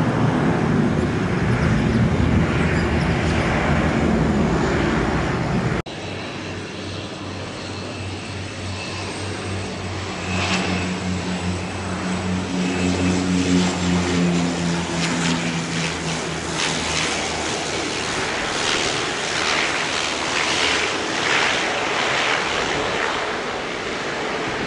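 Aircraft engines at an airport: a loud, deep rumble that breaks off abruptly about six seconds in, then the steady droning hum of a propeller aircraft with a faint high whine, which eases off after about seventeen seconds into a noisy hiss.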